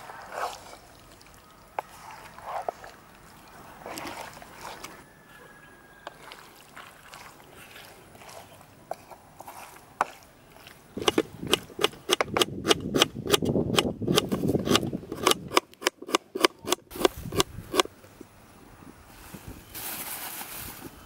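A spatula stirring chicken curry in a non-stick kadai, with a few scattered taps at first and then, about halfway through, a fast run of sharp knocks and scrapes against the pan lasting several seconds. Near the end there is a short rustling hiss as sliced onions are dropped into the pan.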